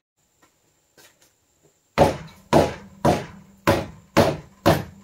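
Hammer blows on a Ford F-350 front wheel that is stuck on its hub, being knocked loose. Six heavy strikes about half a second apart, starting about two seconds in.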